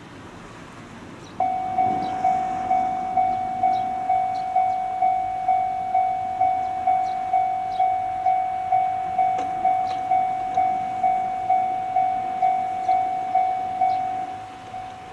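Railway level-crossing warning bell ringing, one steady clanging tone repeated about twice a second, starting suddenly about a second and a half in and dropping in level near the end: the signal that a train is approaching.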